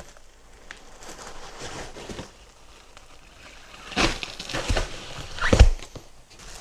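Packaging being handled in a cardboard box: rustling and scraping, with a few knocks about four seconds in and a louder thump near the end.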